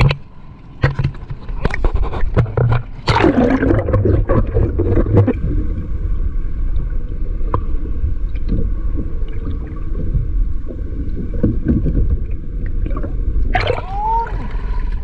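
Small motorized fishing boat (bangka) underway: a steady low engine rumble with water noise, with scattered knocks in the first few seconds.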